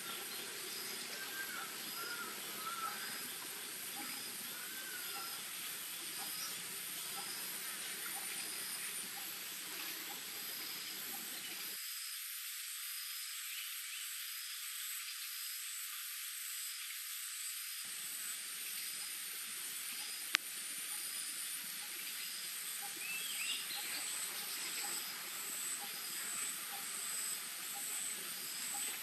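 Forest ambience of insects: a steady high trill with a shorter chirp repeating about once a second. Occasional brief bird whistles come through, and there is one sharp click about two-thirds of the way through.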